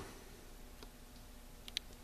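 Quiet room tone with a faint steady low hum and a few faint, short clicks, the sharpest shortly before the end.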